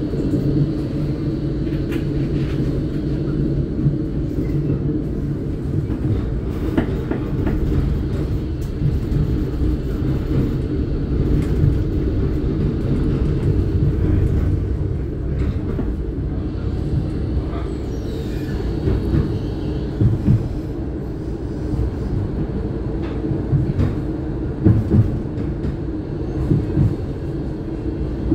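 NGT8D low-floor tram running on its rails: a steady low rumble with scattered short clicks and knocks.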